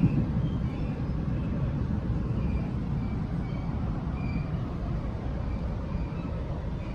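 Steady rumble of a Taiwan Railways Tze-Chiang express train running along the line, heard from inside the passenger carriage.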